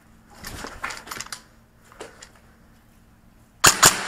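Two quick airsoft rifle shots, about a fifth of a second apart, fired near the end at close range.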